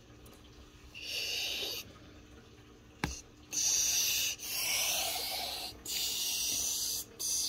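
Plush toys and the fabric of a storage bin rustling and rubbing as a hand digs among them, in five separate bursts of about a second each, with a single sharp click about three seconds in.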